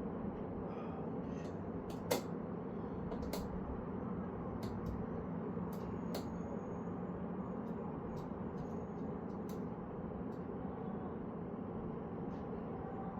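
Scattered sharp metal clicks and taps from bicycle sprocket and crank parts being fitted by hand, the loudest about two seconds in, over a steady background hum.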